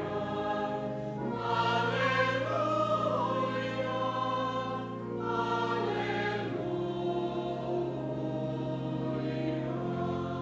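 A choir singing a slow hymn in long held chords, moving to a new chord a few times.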